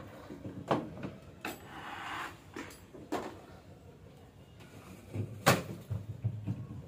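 Clatter of things being handled inside an open refrigerator as it is emptied: a few sharp knocks against the shelves and compartments, with a short scraping noise about two seconds in. The loudest knock comes about five and a half seconds in.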